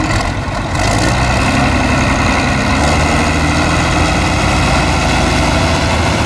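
John Deere farm tractor engine running, picking up revs about a second in and then holding a steady note.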